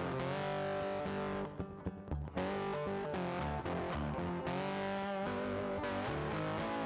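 Background music led by a distorted electric guitar, with a brief drop-out about one and a half seconds in.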